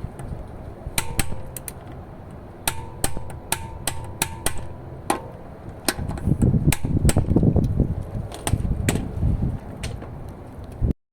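Sharp metallic clanks and knocks with a short ring, as tools and wheel bolts are handled. From about six seconds in comes a few seconds of loud, dense rattling from a cordless impact wrench working on a wheel bolt. The sound cuts off abruptly near the end.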